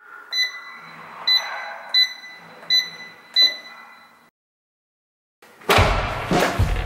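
Electronic door keypad lock beeping five times as a code is entered, one short high beep per key press, about one every 0.7 s. After a brief silence, music with a heavy drum beat starts near the end.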